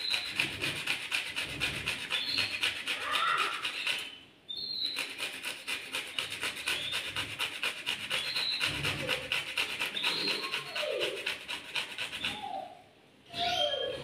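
A carrot being grated by hand on a small metal grater: fast, steady rasping strokes, pausing briefly twice.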